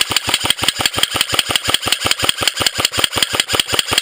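Airsoft electric assault rifle firing one long full-auto burst, a rapid even rattle of about nine shots a second.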